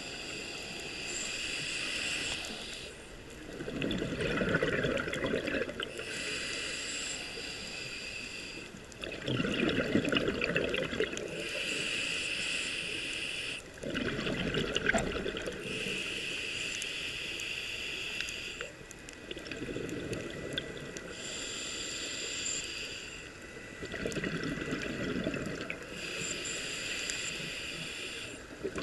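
A scuba diver breathing through a regulator underwater. Each inhale gives a high hiss from the regulator and each exhale a low, bubbling rumble of exhaust bubbles. The two alternate steadily, about one full breath every five seconds, six inhales and five exhales.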